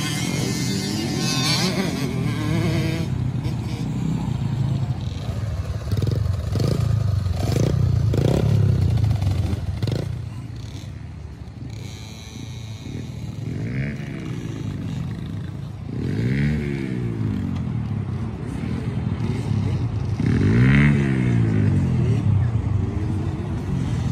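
Small four-stroke kids' dirt bike engines, a Honda CRF110 among them, riding a motocross track: the engines rev up and ease off in repeated swells as the bikes pass, with the pitch rising and falling several times.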